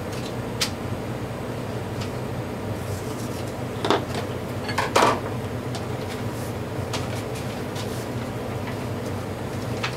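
Steady low machine hum with a few short knocks and taps as a circuit board is handled on a bench mat, the loudest two about four and five seconds in.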